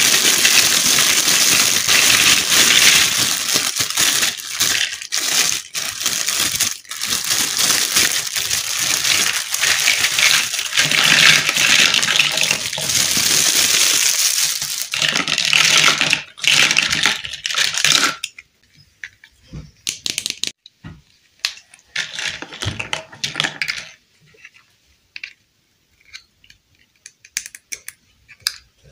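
Clear plastic bag crinkling loudly and continuously as it is handled. About two-thirds of the way through it stops and gives way to scattered clicks and taps of small hard plastic toy pieces being picked up and set down.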